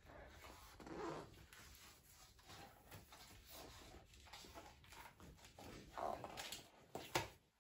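Soft paper rustles of a large hardcover picture book's pages being turned and the book being handled, with one rustle about a second in and the strongest cluster near the end.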